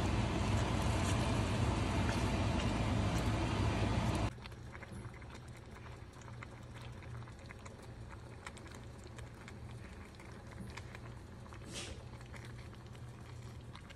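Sweet and sour sauce and vegetables sizzling in a wok: a loud, steady hiss over a low hum that cuts off suddenly about four seconds in. After that comes a much quieter simmer with faint scattered crackles.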